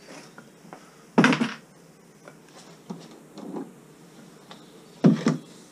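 Handling knocks and clicks as a lawnmower wheel is pulled off its axle: two louder clunks, about a second in and near the end, with quieter clicks between.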